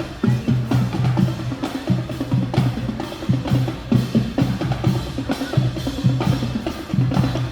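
Marching band drumline playing a steady, busy rhythm on snare and bass drums.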